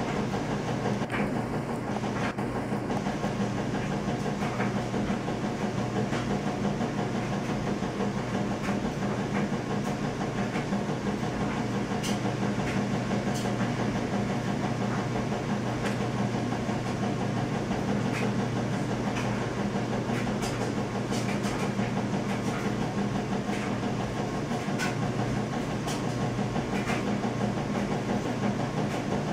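Steady machine-like hum with several constant low tones, unchanging throughout, with a few faint scattered ticks.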